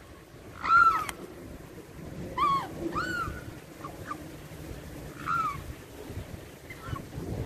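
Mute swan cygnets calling with short, high, down-curving peeping whistles, about half a dozen over several seconds, the loudest about a second in.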